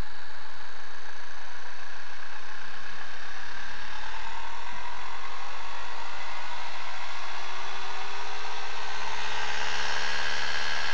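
Homemade Bedini motor spinning up: a whir whose pitch climbs slowly as the rotor gathers speed, still a little slow.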